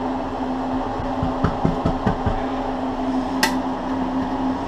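Knocks and clatter of kitchen utensils and objects being moved about in a search for a can opener, with a sharp clack about three and a half seconds in, over a steady low hum.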